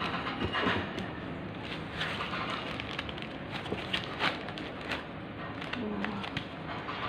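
Laptop packaging being handled: a plastic bag crinkling and rustling, with light knocks and scrapes of cardboard and foam.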